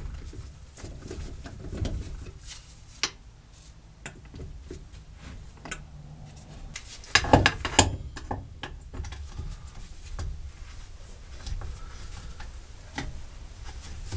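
Hand tools on a go-kart wheel hub: scattered metal clicks and clanks of a wrench and locking pliers gripping and turning the hub hardware, with a cluster of louder clanks about seven to eight seconds in.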